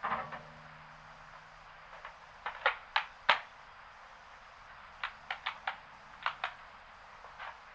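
A series of sharp clicks and taps in small clusters, about a dozen in all, the loudest about three seconds in.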